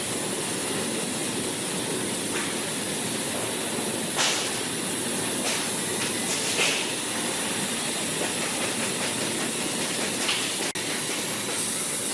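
Plasma cutter cutting sheet metal: a steady, loud hiss of the arc and its air jet, broken by a few brief crackles.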